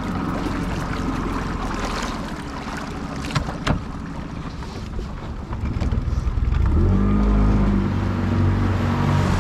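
Small boat's outboard motor running steadily as it warms up, with a couple of sharp knocks a few seconds in. About six seconds in it revs up, its pitch rising and the sound getting louder, then holds at the higher speed.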